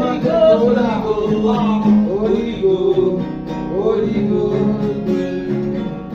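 Gospel prayer-song music: a melody line bending in pitch over a steady held accompaniment, between sung phrases.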